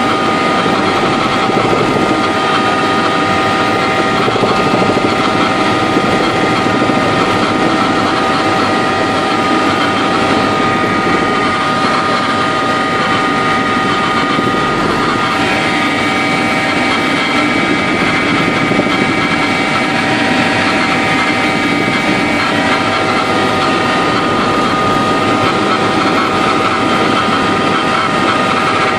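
Helicopter in flight heard from inside the cabin: loud, steady engine and rotor noise with a constant high whine running through it.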